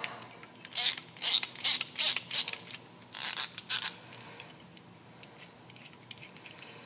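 About eight short, sharp metallic rasping strokes over three seconds, sounding like a ratchet, as the bolt is worked out of a new billet shifter arm. They are followed by faint ticks of handled hardware.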